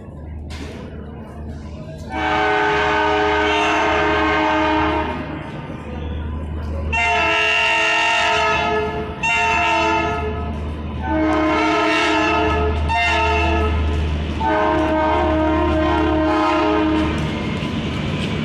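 Indian Railways WDP 3A diesel locomotive sounding its multi-tone horn in a series of about six long blasts with short breaks between them. The engine runs with a low rumble underneath.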